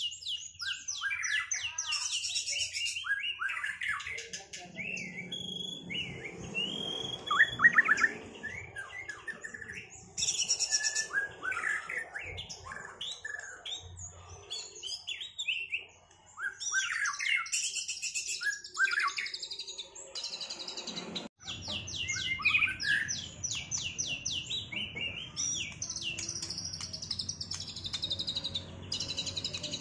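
White-rumped shamas, freshly out of moult, singing against each other in a duel: a dense, varied stream of rapid chirps, trills and sweeping whistles, loudest about a quarter of the way in.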